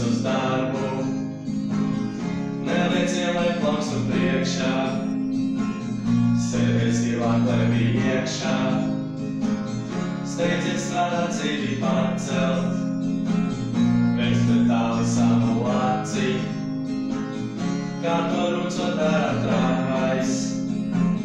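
Acoustic guitar strummed in steady chords with two boys singing along.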